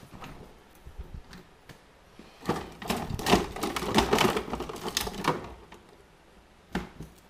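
Refrigerator being opened and a can taken out: a few clicks, then a dense run of clinking and rattling from bottles and cans in the fridge that lasts about three seconds, then one sharp click near the end.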